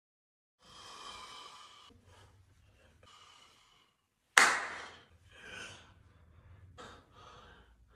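A man's quiet breathy sighs and gasps, with one sudden louder sound about four and a half seconds in and a few short fainter breaths after it.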